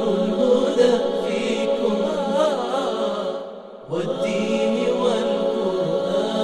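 Chanted vocal music with held notes and an ornamented, wavering melody line. It drops away briefly about three and a half seconds in, then starts again.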